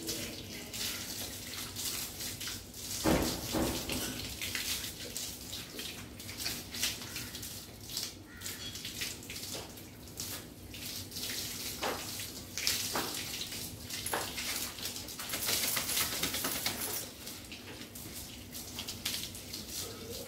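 Water running from a garden hose and splashing onto a wet dog and the tiled floor, a steady fluctuating hiss. One louder thump comes about three seconds in.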